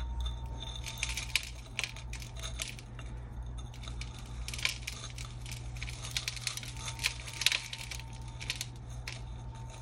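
Scattered clicks and taps of fingers and fingernails handling a small glass globe terrarium as an African violet is worked loose from it, over a low steady hum.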